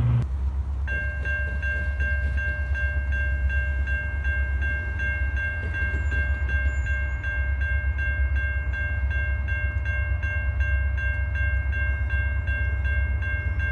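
Southbound train passing with a steady low rumble. From about a second in, a ringing warning tone with several pitches pulses about three times a second.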